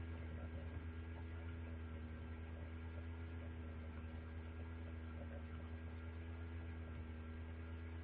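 Steady electrical mains hum, a low buzz with a ladder of higher overtones, unchanging throughout.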